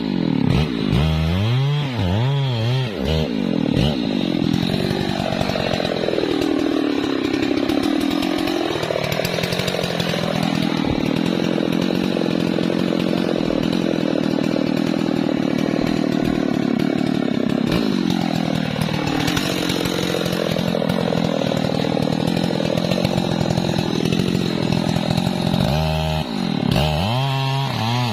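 Husqvarna 3120 XP large two-stroke chainsaw cutting a log: its engine is revved up and down in the first few seconds and again near the end, and held at full throttle in between, the pitch sagging twice as the chain bites into the wood and then recovering.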